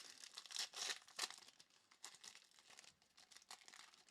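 Faint crinkling and rustling as trading cards and their packaging are handled, in a string of short, soft rustles that are loudest in the first second or so.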